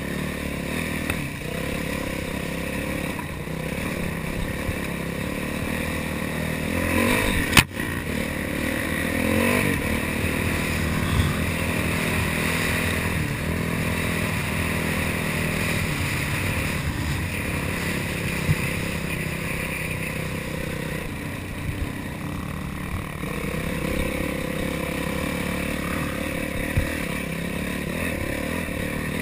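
Yamaha YZ450F dirt bike's single-cylinder four-stroke engine running and revving under load as it is ridden over rough trail, with chassis clatter. There is a sharp knock about seven and a half seconds in.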